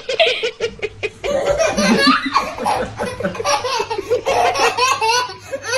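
Repeated bursts of laughter; from about a second in, a baby laughing in hearty belly laughs.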